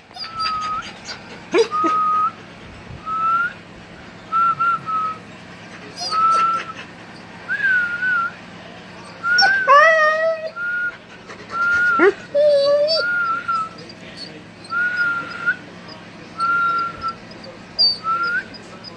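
Husky whining: a dozen or more short, thin, high whines, each with a slight bend in pitch. Two fuller, lower calls come about ten and twelve and a half seconds in.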